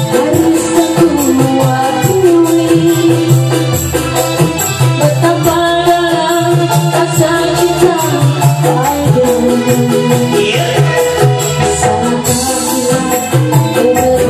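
Music with a steady beat and a woman singing a melody over it, as with a performer singing into a microphone over a backing track.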